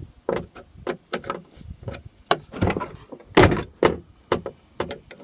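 Metal clicks and scrapes of a screwdriver worked in a vehicle door's lock cylinder, with two louder clunks of the lock mechanism about three and a half seconds in.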